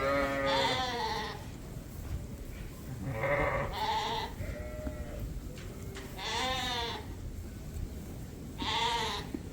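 Lambs bleating: about four separate wavering calls a few seconds apart.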